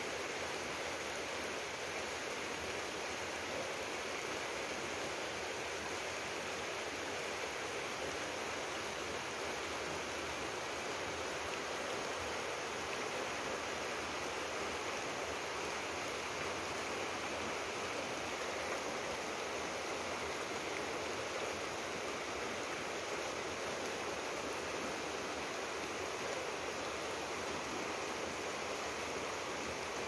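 Steady rush of a muddy forest river.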